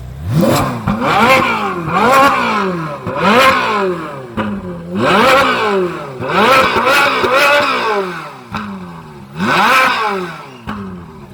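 Ferrari V8 engine revved hard again and again, about seven times, each rev climbing quickly and falling back.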